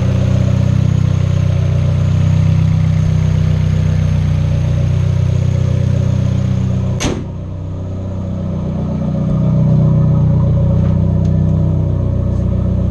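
Hyundai Genesis Coupe 2.0T's turbocharged 2.0-litre four-cylinder engine idling steadily. About seven seconds in comes a single sharp bang, after which the high hiss is quieter for a while.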